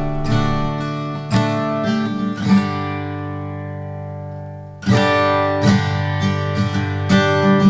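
Background music on acoustic guitar, strummed and picked; about halfway through a chord is left to ring out and fade, then the playing picks up again.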